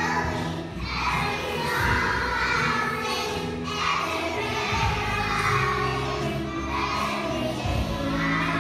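A group of young children singing together over instrumental music.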